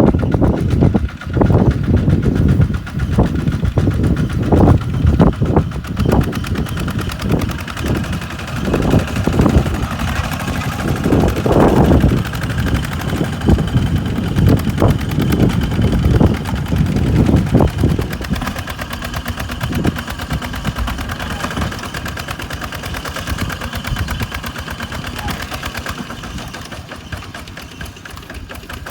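Kubota RT140 single-cylinder diesel engine of a two-wheel tractor running hard with a rapid firing beat. The low rumble surges up and down for the first two-thirds, then settles quieter and steadier.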